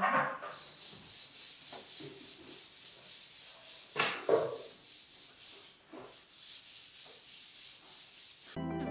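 Lacquer spatulas being rubbed back and forth on 400-grit sandpaper to grind their edges flat, a steady rasping at about two to three strokes a second, with a short pause around six seconds in. Soft music starts just before the end.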